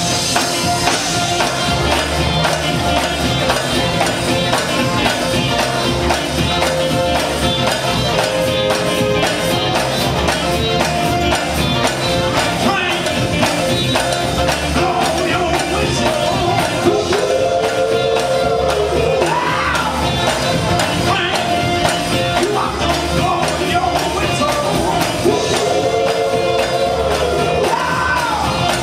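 Live gospel quartet music: a band of electric guitar, bass, drums and keyboard playing continuously, with a singer's voice rising and falling over it in phrases.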